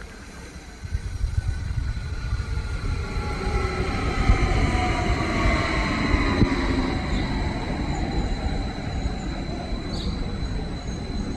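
Train running past, a heavy rumble from wheels and running gear with several tones falling in pitch as it goes by.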